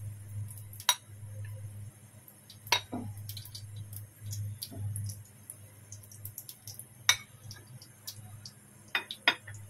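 Plastic ladle knocking and clinking against a non-stick wok with oil in it: about six sharp knocks spread out, two close together near the end, over a low steady hum.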